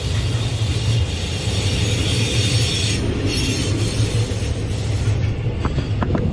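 Freight train of tank wagons rolling past at close range: a steady rumble of steel wheels on the rails, with a few sharp clicks near the end.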